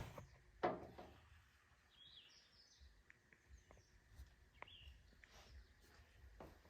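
Near silence with a single knock about half a second in, then a few faint high chirps around two and four and a half seconds in.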